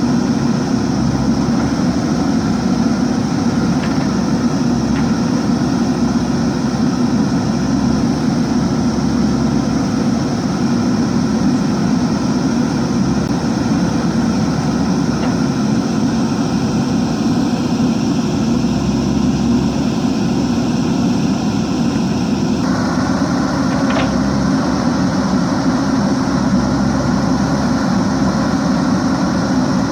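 JCB 3DX backhoe loader's diesel engine running steadily as the machine works, its note changing slightly about three quarters of the way through.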